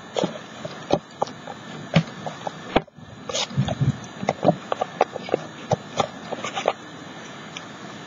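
Hands pressing and patting glued paper cutouts down onto a canvas: irregular soft taps and rustles of paper under the fingers, which stop about a second before the end.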